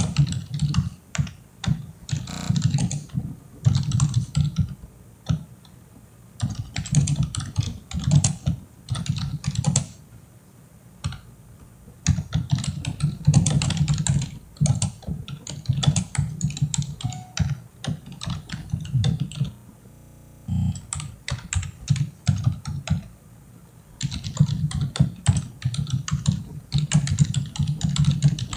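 Typing on a computer keyboard, fast runs of keystrokes in bursts with short pauses between them.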